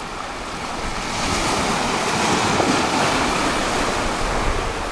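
Sea surf breaking and washing over rocks at the shoreline, a rushing wash of foam that swells about a second in and eases toward the end.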